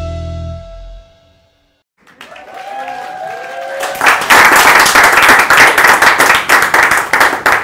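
The last notes of a logo jingle ring out and fade, then after about a second of silence a few gliding musical tones come in and give way to loud applause from about four seconds in.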